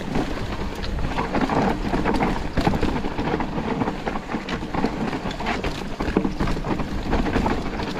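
Mountain bike descending a dirt trail at speed: tyres on dirt and the bike rattling over bumps in quick, irregular knocks, with wind rushing over the microphone.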